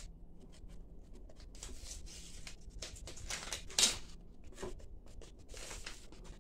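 Foil sheet-mask sachet being handled and opened by hand: irregular crinkling and tearing rustles in short bursts, the loudest a little before the middle.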